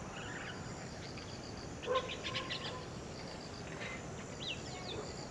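Rural outdoor ambience: birds chirping briefly about two seconds in and a short whistled bird call near the end, over a faint, evenly pulsing insect trill.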